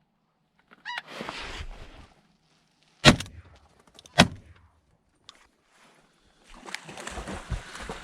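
Two shotgun shots about a second apart, with stretches of rustling noise before and after.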